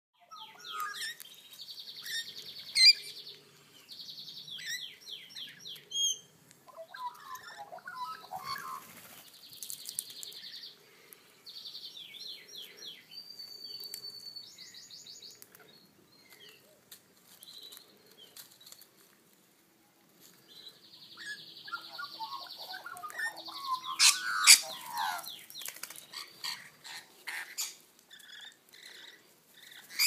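A mixed group of Australian garden birds calling, with shrill rasping screeches and rapid chattering, repeated chirps coming in bouts. There is a quieter stretch past the middle, and the calls are loudest and busiest a few seconds later.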